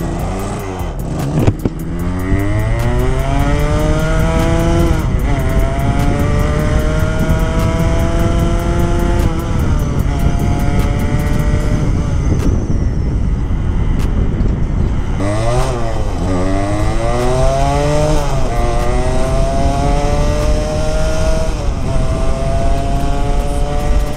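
Kawasaki AR80's two-stroke single-cylinder engine accelerating hard through the gears. The pitch climbs in each gear and drops back at each upshift; about halfway through the engine eases off and falls in pitch, then pulls up through the gears again. This is a wide-open-throttle test run of its stock-jetted 24 mm Keihin carburettor, with the air-fuel screw opened a little to lean out a rich mixture.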